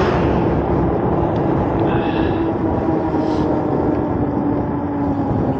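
Wind rushing over the camera microphone of a moving e-bike, a steady loud roar, with a hum underneath that slowly drops in pitch.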